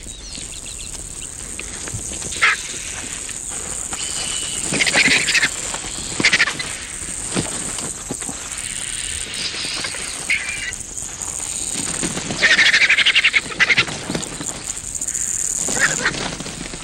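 Vultures squabbling at a carcass, a lappet-faced vulture among the smaller vultures, giving a series of short harsh squawks; the longest squawk lasts about a second, about two-thirds of the way through. A steady high-pitched insect trill runs underneath.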